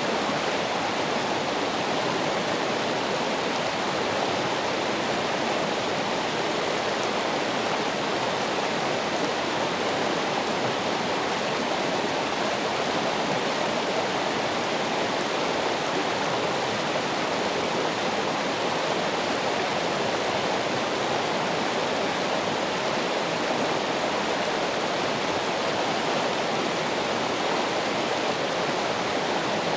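Running water rushing steadily and evenly, a continuous hiss and splash without pauses or changes.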